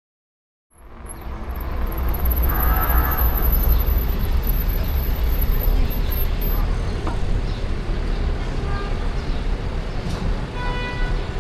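Street traffic noise with a steady low rumble, fading in about a second in. Brief pitched tones like a horn sound about two and a half seconds in and again near the end.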